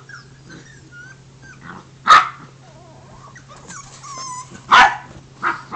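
English bulldog making small high squeaky whines while playing, with three short sharp barks, about two seconds in, near five seconds, and just before the end.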